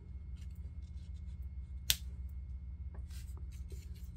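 Paper cutouts being handled and pressed onto a paper tag: faint rustles and scratches, with one sharp click about two seconds in, over a steady low hum.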